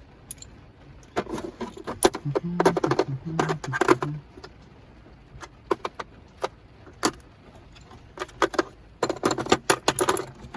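Small metal tools and parts clinking and rattling as they are handled, in two spells of quick clicks: about a second in and again near the end.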